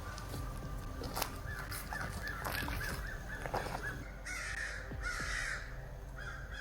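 A crow cawing twice in quick succession, two harsh calls a little over four seconds in, after a run of short chirping notes.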